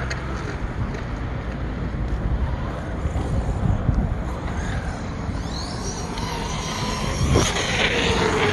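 ARRMA Notorious RC monster truck's brushless electric motor whining as it runs across asphalt, with rising whines as the throttle is opened about six seconds in and a sharp knock shortly after. A steady low rumble sits underneath.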